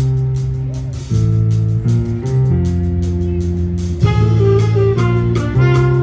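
A jazz band of saxophones, trombones, trumpet, keyboard and drum kit playing, with held chords that change every second or so. About four seconds in, higher, brighter horn parts come in over the low chords.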